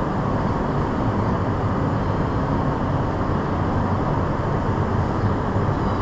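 A row of wall-mounted air-conditioning units running: a steady, loud drone, a low hum under a broad rushing noise, with no change throughout.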